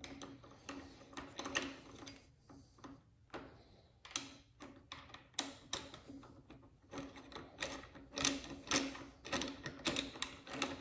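6 mm Allen wrench turning out the bar-end mirror bolt of a motorcycle handlebar: a run of small, irregular metallic clicks and scrapes as the key and bolt turn, busier in the second half.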